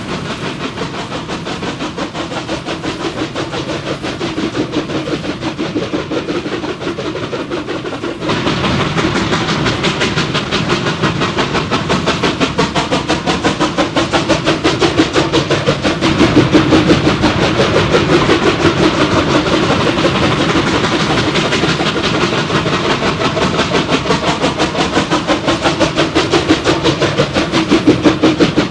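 Heavy B&O S-1 2-10-2 steam helper locomotives working hard upgrade, their exhaust chuffing in a fast, even beat over the rumble of the train. The sound turns abruptly louder and fuller about eight seconds in.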